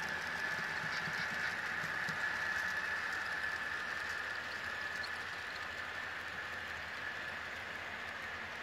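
Model passenger train running along the layout's track: a steady rolling hiss of wheels and motor with a steady high whine, swelling slightly in the first few seconds and then easing off as it passes.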